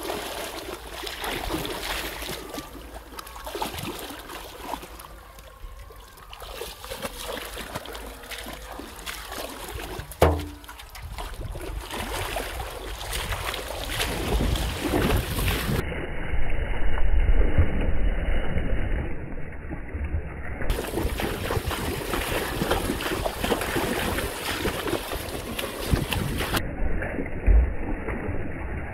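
Water splashing and sloshing as a person wades, lunges and dives through shallow river water while catching fish by hand, with wind buffeting the microphone. A single sharp knock about ten seconds in.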